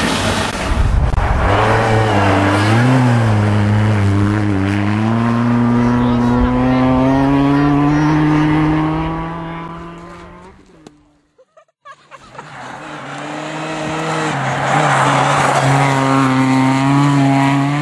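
Ford Fiesta ST rally car's four-cylinder engine at high revs on a snow stage, its note climbing steadily as the car accelerates past and then fading away. After a short break a second pass comes in, the engine held hard at high revs and rising in level.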